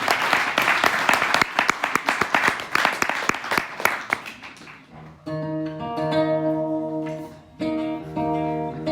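Audience applause fading out over the first four seconds or so, then an acoustic guitar strumming a few chords that are left to ring, with a short break between them.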